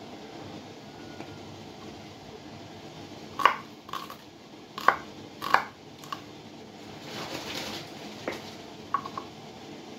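Kitchen knife knocking on a wooden cutting board while slicing shallots: about eight sharp, irregularly spaced strokes that start about three and a half seconds in, with a short rustle between them.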